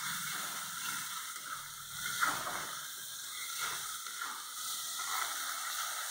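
Thick onion-tomato masala with ground spices sizzling as it fries in a kadhai. A metal spatula stirs and scrapes against the pan several times, loudest about two seconds in.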